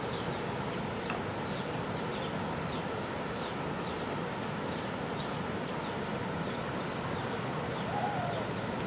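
Small birds chirping at scattered intervals over a steady outdoor hiss.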